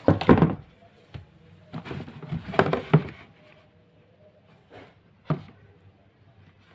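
Handling sounds of cardboard shoe boxes and shoes being moved: a thump at the start, a cluster of knocks and rustles a couple of seconds in, and a sharp knock about five seconds in.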